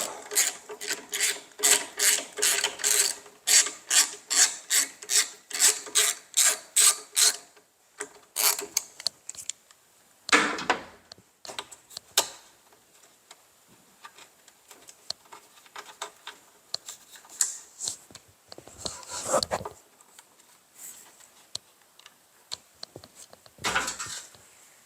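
A T20 Torx bolt being loosened with a ratcheting driver: an even run of clicks, about two or three a second, for the first seven seconds or so. Then a few scattered scrapes and handling noises from the bolt and parts being worked.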